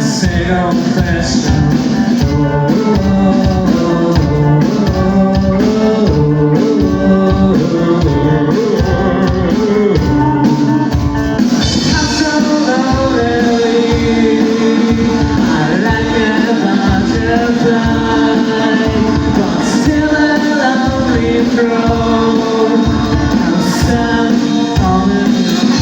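A live rock band playing a funk song: a sung melody over a steady drum beat and guitar.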